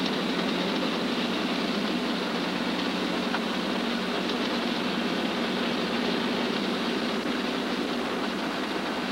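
Steady engine and road noise of a car driving, heard from inside the car.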